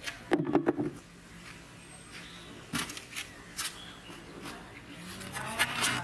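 A few sharp knocks and clicks from handling, then near the end a rooster starts crowing.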